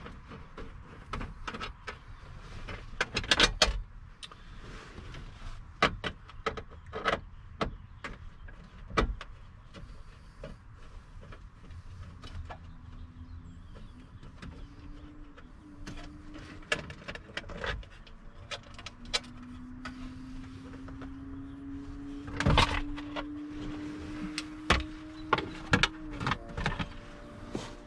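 Clicks, taps and knocks of a hand tool and plastic trim as the small lower dash panel of a 2001 Chevy 2500 pickup is unbolted from its 7 mm bolts. From about halfway a hum rises slowly in pitch and stops abruptly a couple of seconds before the end.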